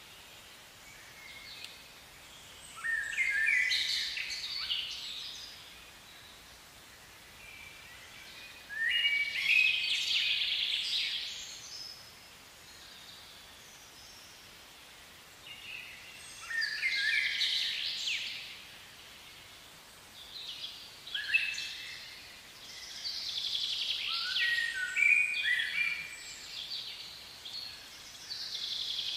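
A songbird singing: high phrases about two seconds long, each falling in steps, repeated every five or six seconds over a faint steady hiss.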